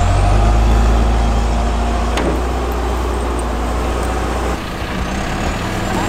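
John Deere 310SJ backhoe loader's four-cylinder diesel engine running steadily under load while it pushes snow, a low rumble. A single sharp knock comes about two seconds in, and the rumble eases a little past the four-second mark.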